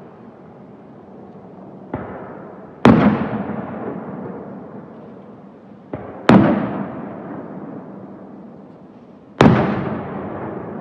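Aerial firework shells bursting: three loud booms about three and a half seconds apart, each trailing off in a long echoing rumble, with fainter sharp pops before the first two.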